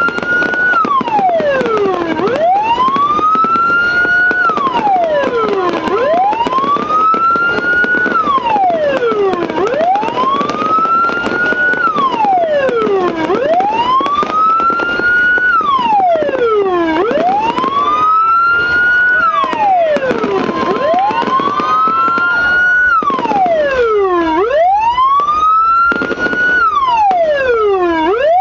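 Electronic police-escort siren, a multi-tone module driving a TOA horn speaker, sounding a wail: each cycle climbs in about a second and a half, falls back more slowly, and repeats about every three and a half seconds. It sounds loud and unbroken.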